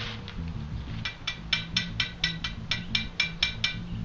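Blacksmith's hammer tapping lightly on steel at the anvil: about a dozen ringing taps in quick succession, about four a second, starting about a second in.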